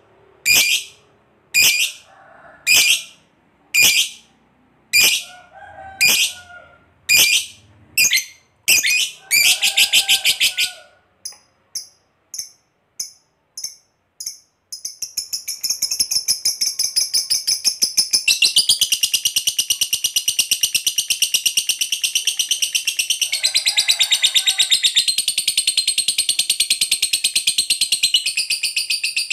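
Masked lovebird calling: a run of sharp, high chirps about one a second, then a few quicker, fainter chips. About halfway through it breaks into one long, unbroken rapid chattering trill, the 'ngekek panjang' that hobbyists prize in lovebirds, stepping up in pitch partway through.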